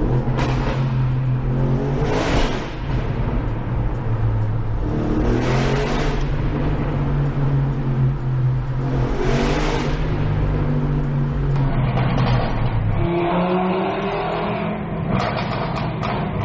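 Audi RS6 engine heard from inside the cabin in a tunnel, accelerating hard: three rising pulls through the gears, each broken by a brief dip at the shift. After about eleven seconds it cuts to an Audi RS3's five-cylinder engine revving up under acceleration.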